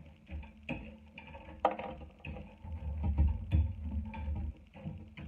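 A metal fork clinking and scraping on a plate while sauced chicken wings and hot Cheetos are tossed together, with irregular sharp clicks and low handling thumps; the sharpest click comes a little under two seconds in.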